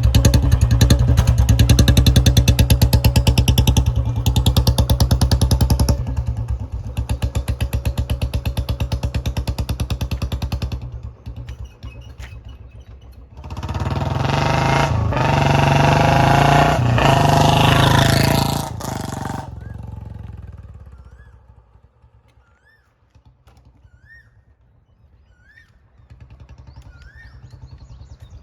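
A 2014 Royal Enfield Bullet 350 Standard's single-cylinder engine running as the bike is ridden, with its even thumping beat. It is loud and close at first and drops away after about ten seconds. It swells loud again as the bike comes past, then fades into the distance and faintly returns near the end.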